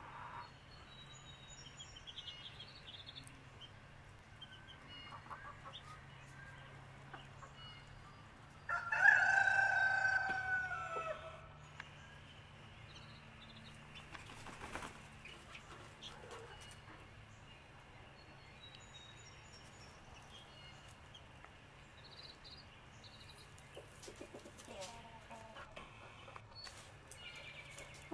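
A rooster crows once, a long call about a third of the way in and by far the loudest sound. Around it, hens cluck softly and short high chirps come and go.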